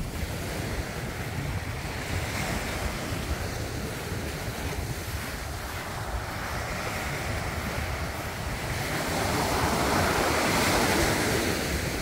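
Small surf breaking and washing up a sandy beach, with wind buffeting the microphone. A wave surges in louder about nine seconds in and eases off near the end.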